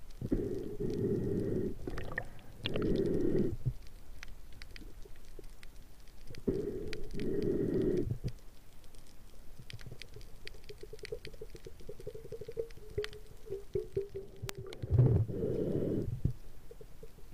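Diver breathing underwater through a hose-fed regulator: several long rumbling breaths with bubbles, each lasting about a second, and a wavering hum between them in the middle. Faint sharp clicks crackle throughout.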